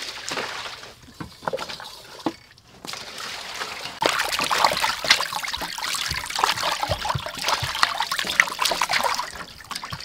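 Raw chicken breasts being washed by hand in a stainless-steel basin of water: splashing and sloshing, with water trickling and dripping off the meat as it is squeezed. The splashing gets busier and louder about four seconds in.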